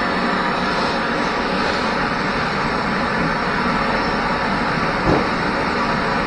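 Electric welder's arc sizzling steadily, with a single knock about five seconds in.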